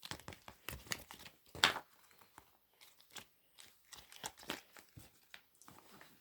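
Pop-it fidget toy being handled and pressed: an irregular run of short crinkly clicks and pops, the loudest about one and a half seconds in.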